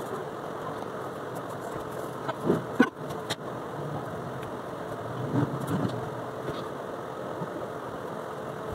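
A steady low hum, with a few short knocks and scuffs as a spiral sketchbook and pencil are handled on a wooden desk, two clusters of them a few seconds apart.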